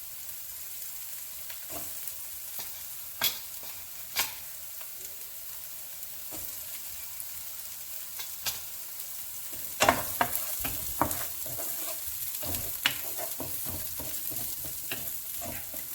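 Chopped beans and carrots frying in hot oil in a pan, with a steady sizzle. A utensil knocks against the pan a few times, then more often about ten seconds in as the vegetables are stirred.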